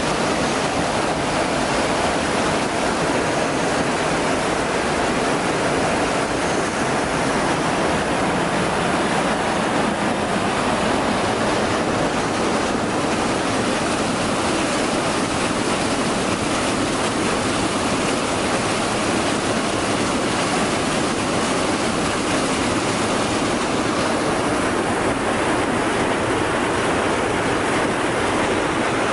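Wastewater pouring over a concrete weir and churning into a concrete channel: a steady rush of falling, splashing water.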